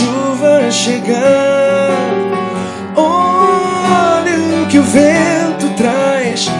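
A man singing into a microphone over strummed acoustic guitar, with long held notes that waver in pitch.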